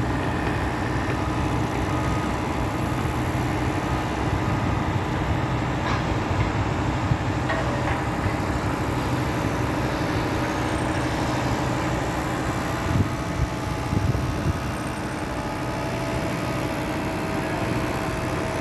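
A machine running steadily with a low hum, with a few knocks about two-thirds of the way through.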